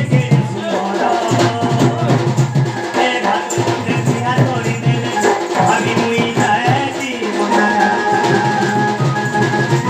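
Live folk music: a two-headed barrel drum (dhol) beaten in a quick, busy rhythm, with a held melody line over it that is strongest in the second half.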